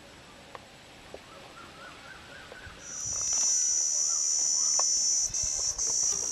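Insects buzzing, a loud, steady, high-pitched drone that sets in suddenly about three seconds in, over faint outdoor background.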